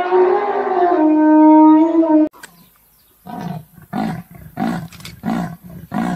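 An African elephant trumpets in one long, pitched call that cuts off suddenly about two seconds in. After a short pause a leopard starts its sawing call: a regular run of rasping grunts, a little over one a second.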